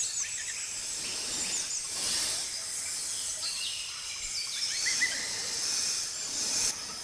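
Forest ambience: a steady high hiss of insects with short, falling bird chirps scattered through it.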